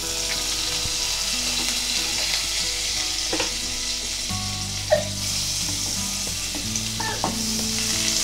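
Butter melting and sizzling in a hot pressure cooker, a steady frying hiss. Near the end a wooden spatula is pushed through the foaming butter.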